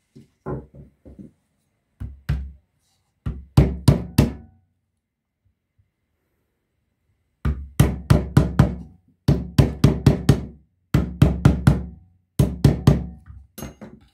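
Hammer knocking on the rewound motor's metal stator core, seating it into the air cooler water pump's plastic housing. Repeated sharp knocks come in short runs: a few light taps at first, then a long run of harder blows in the second half, some leaving a faint metallic ring.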